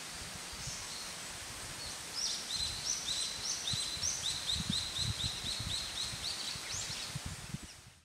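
Japanese paradise flycatcher singing: a few high notes, then from about two seconds in a run of short, quickly repeated downslurred whistles, about three a second, over a steady background hiss.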